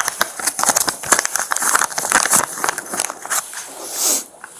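Plastic bag crinkling and rustling, with many small clicks, as personal belongings such as jewellery are put into it, with a longer rustle about four seconds in.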